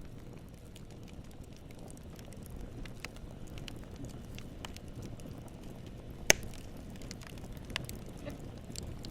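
Wood campfire burning: a low steady flame noise with scattered crackles of burning wood, and one sharp, much louder pop about six seconds in.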